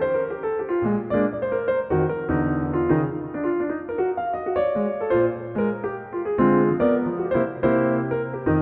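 Solo jazz piano improvising: quick runs of notes in the middle and upper range over sustained low bass notes.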